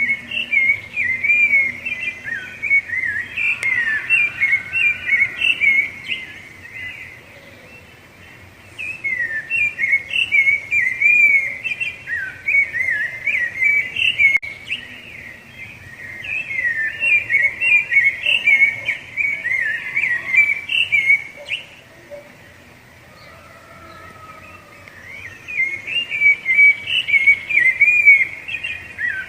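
Rufous-bellied thrush (sabiá-laranjeira) singing in four bouts of rapid, warbling whistled phrases, each bout lasting several seconds, with pauses of a few seconds between them.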